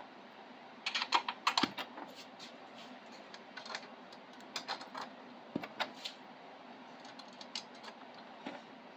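Irregular light clicks and taps of small printer parts, screws and tools being handled and fitted while a 3D printer is assembled by hand. A quick cluster comes about a second in, then scattered single clicks, over a faint steady background hum.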